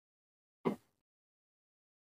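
Dead silence broken once by a single short knock, about a quarter second long, fading quickly: a brief handling noise.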